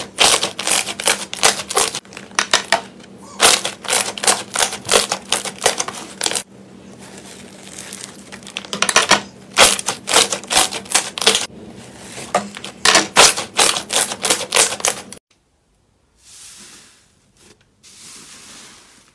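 Hands kneading and pressing clear glitter slime: trapped air bubbles pop in rapid clusters of sharp clicks and crackles. About 15 seconds in it breaks off and gives way to a much quieter, soft squish of thick slime being pressed.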